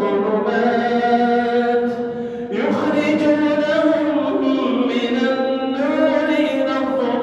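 A man's voice in melodic Quran recitation, drawing out the word 'az-zulumat' in long held notes, with a short break about two and a half seconds in before the next held phrase.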